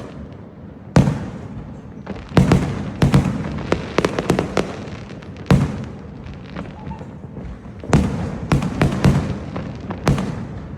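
Fireworks going off: a dozen or so sharp bangs at irregular intervals, some in quick clusters, each trailing off in a short echo.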